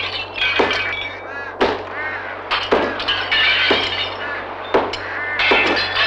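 Window panes being broken: a series of sharp knocks, each followed by glass cracking and shards ringing and clinking as they fall.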